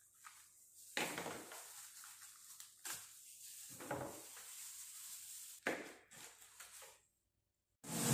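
Knife cutting and scraping the flesh out of a halved pineapple shell: several faint strokes at uneven intervals.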